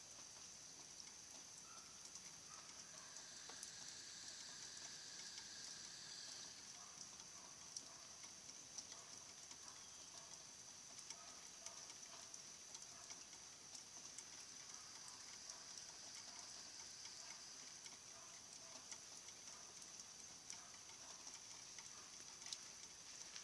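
Near silence: faint outdoor background with a steady high-pitched hum, scattered faint chirps and ticks.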